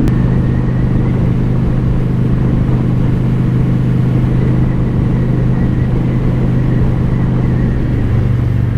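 A Honda Shadow Spirit 750's V-twin engine, breathing through a Cobra Streetrod Slashdown exhaust, running steadily while cruising at about 45 mph in fourth gear. Near the end the engine note drops slightly as the throttle eases.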